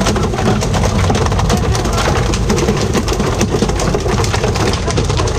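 Fishing boat's engine running steadily under a dense clatter of splashes and knocks as tuna are pole-fished over the rail.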